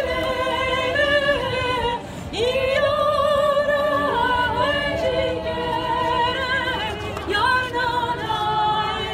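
Girls' choir singing a cappella: held notes with vibrato, breaking off briefly for breath about two seconds in and again about seven seconds in.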